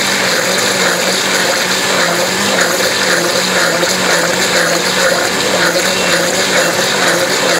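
Electric countertop blender running steadily with a constant motor hum, churning a creamy drink in its plastic jug. It cuts off abruptly at the end.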